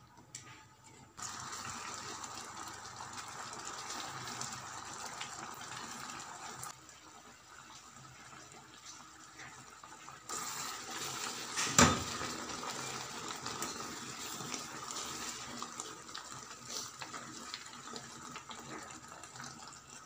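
Thick sweet plum chutney bubbling as it simmers in the pot, a steady fizzing hiss that starts about a second in, eases for a few seconds midway and then returns. A single sharp knock comes a little past halfway.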